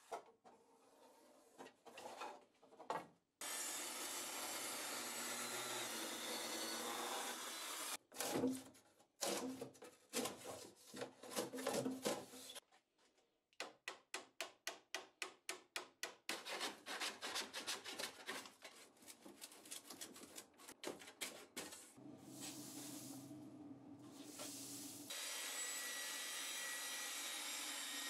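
Woodworking on a hollow-core door: stretches of steady scraping and rubbing on wood, broken by irregular scrapes. About halfway through comes a run of quick repeated strokes, about five a second, as a scraper is worked between the door's wood skin and its frame.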